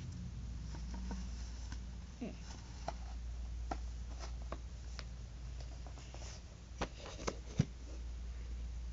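Hands handling small objects on a tabletop: scattered light clicks and taps, the loudest few near the end, over a steady low hum.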